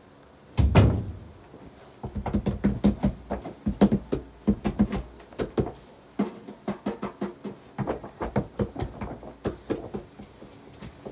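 A loud thump, then a long irregular series of sharp knocks and clicks, several a second, in a small room.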